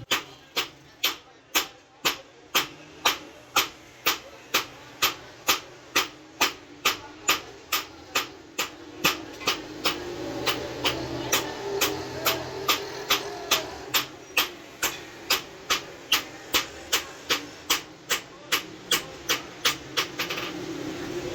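Hand hammer forging steel on an anvil: sharp, ringing blows in a steady rhythm of about two a second, which stop about 20 seconds in. A steady low hum runs underneath and grows louder in the second half.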